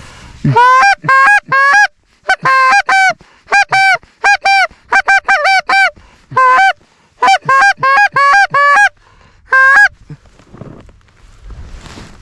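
Canada goose call blown by a hunter: a rapid series of loud honks and clucks in short bursts, each note breaking sharply up in pitch, calling to incoming geese. The calling stops a couple of seconds before the end.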